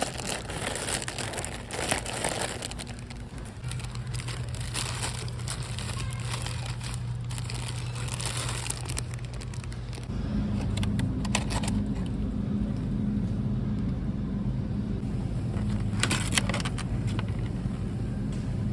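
Car engine and road noise heard from inside the cabin while driving, a steady low hum that steps up in pitch about ten seconds in. A few short bursts of rustling or crinkling come over it.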